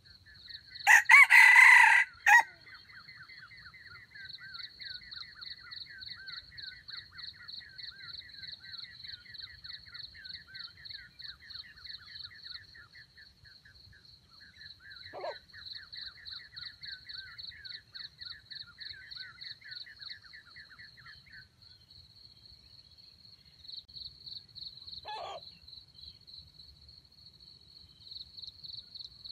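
A rooster crows once, loudly, about a second in. Insects keep up a steady pulsing trill, and two short single calls, likely clucks, come later.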